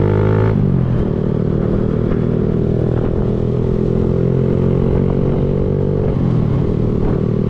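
Kawasaki Z125 Pro's 125cc single-cylinder engine accelerating under riding load, its pitch climbing steadily. The pitch drops suddenly about half a second in and again about six seconds in as the bike shifts up a gear, then climbs again.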